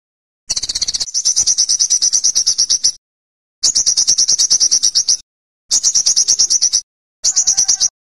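Olive-backed sunbird singing: four high-pitched, rapid trills of about ten notes a second, each one to two and a half seconds long, with short silent gaps between them.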